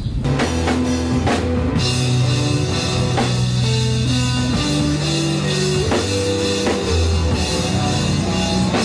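Rock music with a drum kit, bass and guitar, starting abruptly.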